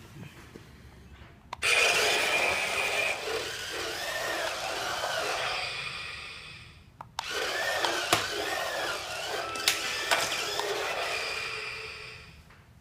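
Turbo Flip Thomas toy train playing its recorded snoring sound through its small speaker, the sign that it has gone into sleep mode. There are two long snores, each with a wavering whistle, and each fades out at the end.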